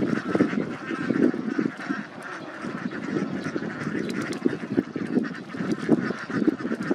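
A large flock of domestic ducks quacking, many short calls overlapping into a continuous chorus.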